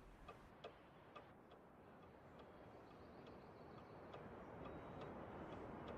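Near silence with faint, even ticking, about two ticks a second, over a low hiss that grows slightly louder toward the end.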